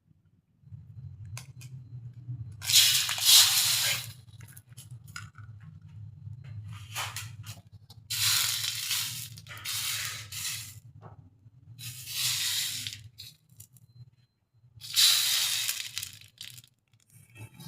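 Close-miked eating: four loud crunching, crackling bursts of a second or two each, over a low steady hum.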